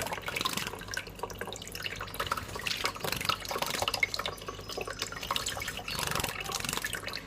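Water splashing and dripping in many quick, irregular little splashes as a small pet bird bathes itself.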